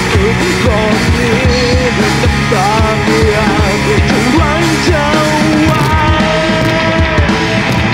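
Live rock band playing: a male singer's vocals over electric guitar, bass guitar and a drum kit, with steady, regular drum hits.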